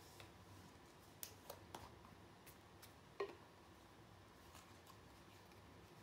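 Near silence with a few faint, scattered clicks and one slightly louder tap about three seconds in.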